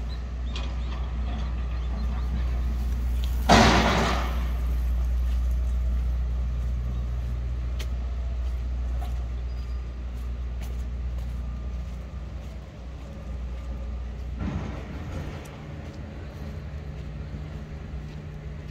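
Steady low rumble of an idling vehicle engine, with a loud, short hiss about three and a half seconds in. A softer hiss comes at about fourteen seconds, and the rumble falls away after it.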